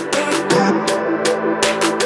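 Electronic music with drum hits and a sustained bass line.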